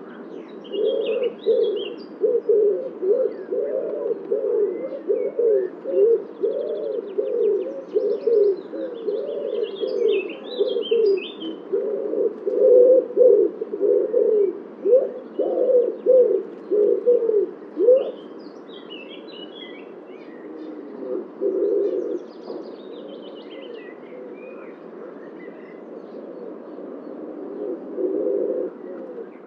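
Common wood pigeon cooing over and over in low, soft phrases, with smaller birds chirping high above it in the background. The cooing stops about 18 seconds in, then comes back briefly twice near the end.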